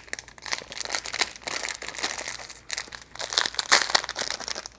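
Clear plastic candy wrapper crinkling as it is pulled open by hand, in irregular crackles, loudest about three seconds in.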